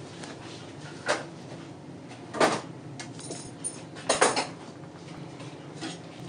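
A few sharp knocks and clatters from kitchen things being handled: one about a second in, one at two and a half seconds, and a double knock around four seconds, over a low steady hum.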